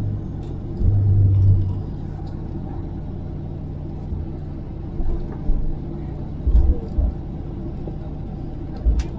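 Steady low rumble of an airliner cabin around landing, with several low thumps and bumps and a sharp click near the end.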